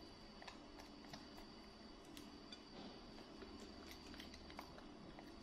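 Near silence: faint room hum with scattered soft clicks from a small macaque chewing and handling fried snack sticks in a plastic basket.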